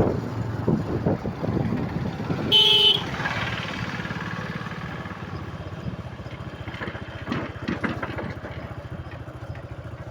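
Vehicle engine running with no exhaust silencer fitted, a rapid, even run of firing pulses, with a short horn toot about two and a half seconds in.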